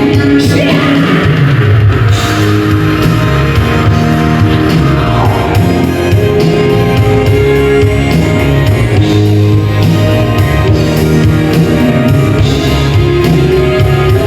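Live band playing an instrumental passage: electric guitar over a drum kit, loud and steady, with no singing.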